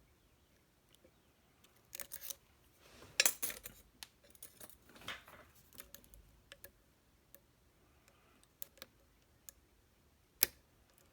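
Small metallic clicks and scrapes of lock picks working a pin-tumbler challenge lock that has reached a false set. They come in quick clusters in the first half, then as scattered single clicks, with one sharp click near the end.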